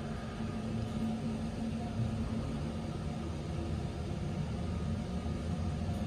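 KONE passenger elevator car travelling down between floors, giving a steady low hum with a faint even tone in it.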